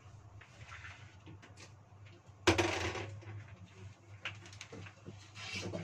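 Kitchenware handled at a sink: a sharp clatter about two and a half seconds in, then a few lighter knocks and clicks, over a steady low hum.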